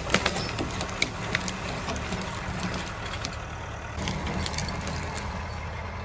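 Tractor engine running steadily, a little louder from about four seconds in, with a few sharp clicks in the first second and a half.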